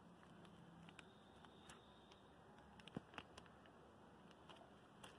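Near silence with a few faint crackles and ticks, the sharpest about three seconds in: a clear plastic bag being handled and tied around a plant stem with string.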